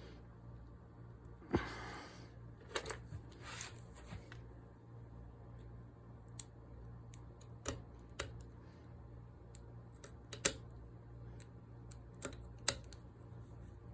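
Scattered light clicks and a few short scrapes from hand work on a small spray-gun fitting held in a bench vise, as a tight hose fitting is worked off.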